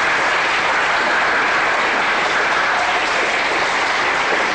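Audience applauding, a steady, even clapping that holds at the same level throughout.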